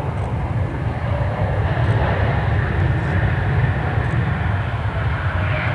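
Jet airliner passing close by, its engines making a loud, steady rumble.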